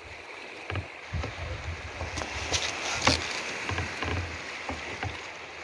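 Sea water lapping and sloshing around a small wooden outrigger boat, with irregular low knocks and a couple of sharper splashes about halfway through.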